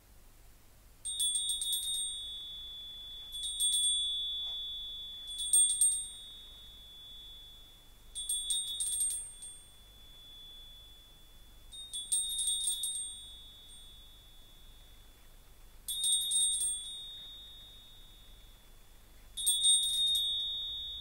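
A small high-pitched bell shaken in seven short flurries, each a quick run of strikes, spaced about two to four seconds apart. Its single clear note rings on and fades between flurries.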